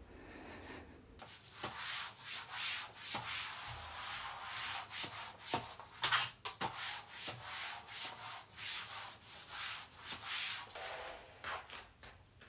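Flat mop with a cloth pad pushed back and forth across a floor. It makes a run of swishing strokes, about two a second, starting about a second in.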